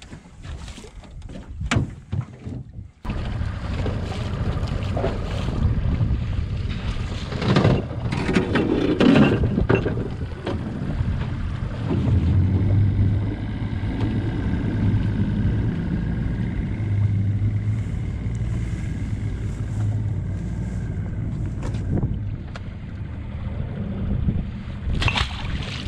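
Small outboard motor on a jon boat running with a steady low hum, starting abruptly about three seconds in, with water splashing from about 7 to 10 seconds in.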